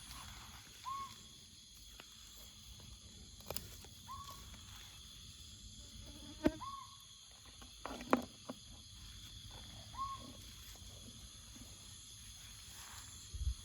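Jungle ambience: insects droning steadily in several high, even tones. A short animal call sounds four times, roughly every three seconds, and a few sharp clicks or knocks are heard, the loudest about six and a half and eight seconds in.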